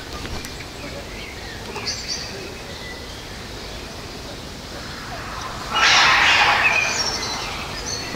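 Outdoor ambience with a few faint bird chirps, then a louder burst of noise lasting about a second and a half, starting around six seconds in.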